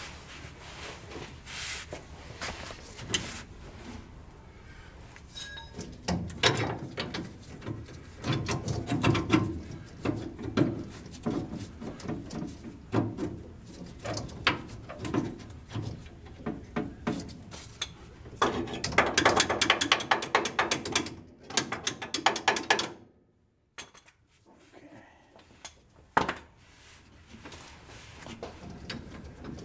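A ratchet wrench clicking in runs as nuts are tightened down on a truck's front leaf spring mounting bolts, with clinks of metal on metal. The longest, fastest run of clicks comes about two-thirds of the way through.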